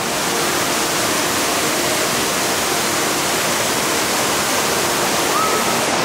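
Waterfall rushing steadily, a loud even roar of falling water, with a brief high chirp near the end.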